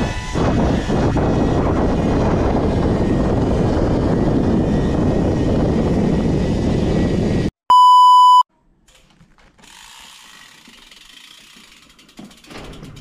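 Loud, steady rushing and rattling noise that cuts off suddenly about seven and a half seconds in. It is followed by a single short electronic beep, then quiet.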